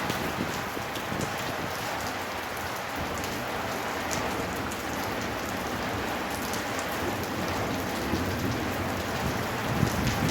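Heavy rain pouring steadily onto hard surfaces, a dense hiss with many sharp individual drop impacts.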